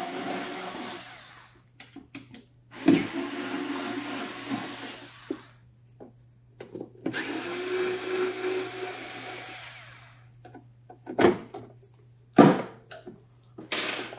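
Cordless electric screwdriver running in three bursts of two to three seconds each, unscrewing the rear panel of an anesthesia machine, followed by three sharp knocks near the end as the panel is handled. A steady low hum runs underneath, which the technician puts down to ripple from the machine's power supply.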